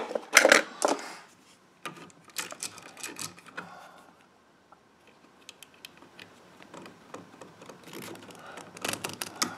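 Small clicks and scrapes of needle-nose pliers working a bare copper wire, bending its end into a hook to go around an outlet's screw terminal. A few sharper clicks come in the first second, with scattered ticks near the end.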